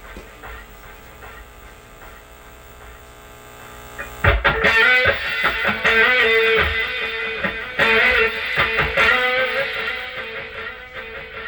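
Music with an electric guitar: quiet playing, then a sudden loud, distorted guitar entry about four seconds in that carries on before easing off near the end.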